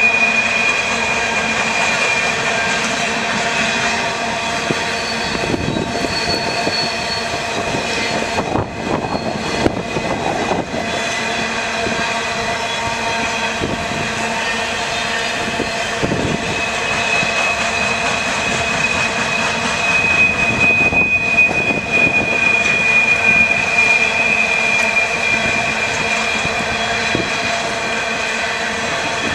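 Empty coal cars of a freight train rolling past, with a steady rumble and clatter of wheels on rail. A high, steady wheel squeal comes through at the start and again through the second half, and there are a few clanks about a third of the way in.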